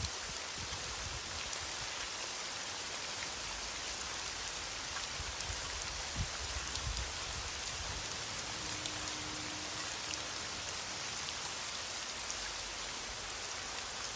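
Heavy rain pouring down steadily, an even hiss of falling drops, with a brief low thump about six seconds in.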